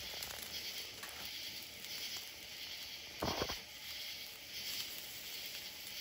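Ribeye steaks sizzling on a wire grill grate over a wood campfire: a steady hiss with faint crackles from the burning wood. One brief louder sound comes about halfway through.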